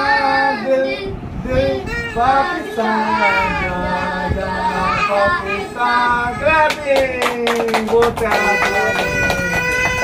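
Children singing together, the song ending in a long held note that falls in pitch. Then comes a short run of hand claps, and near the end a plastic toy horn sounds one steady note.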